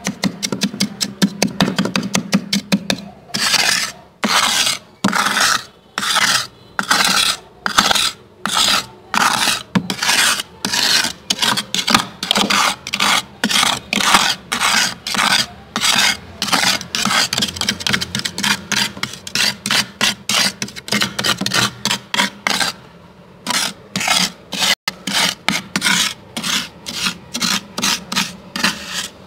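Thick freezer frost being scraped, one scraping stroke after another. Quick short strokes for the first few seconds, then longer strokes a little over once a second, with a brief pause about three quarters of the way through.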